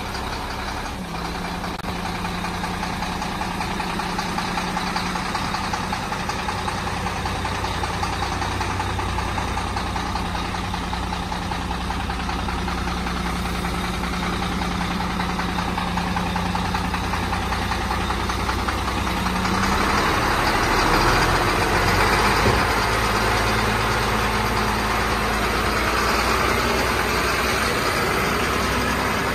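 HOWO dump truck's diesel engine idling steadily. About twenty seconds in the sound changes, with a coarser, louder mid-range noise over the hum.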